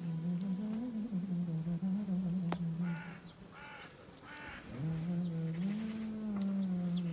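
A bird calling three short times in quick succession about three seconds in, over a low wavering hum that drops out around the calls and comes back about five seconds in. A single sharp click comes just before the calls.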